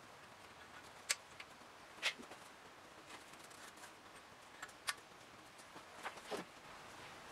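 Light, sharp clicks and taps of steel main bearing shells being handled and pushed into the main saddles of a 5.7 HEMI engine block by gloved hands, about half a dozen in all, the loudest about a second and two seconds in, with a small cluster near the end.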